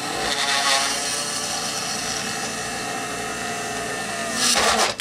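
Dremel rotary tool drilling a hole into the plastic flight deck of a model aircraft carrier kit: a steady motor whine whose pitch shifts as the bit cuts in, with a louder grinding burst near the end.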